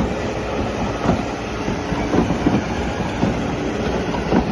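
Heavy machinery running with a steady rumble and irregular metallic clanks about once a second.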